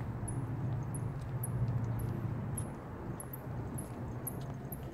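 Steady outdoor background noise with a low hum, and a short high-pitched chirp that repeats about twice a second.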